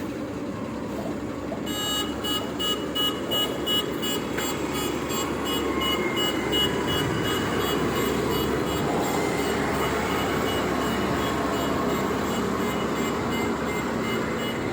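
Diesel engine of a truck-mounted concrete pump running steadily while manoeuvring. About two seconds in, a rapid repeating electronic beeper starts, a reversing alarm, loudest at first and then fainter.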